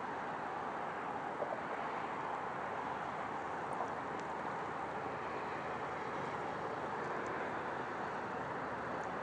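Steady outdoor background noise, an even hiss with no distinct events apart from a faint tick or two.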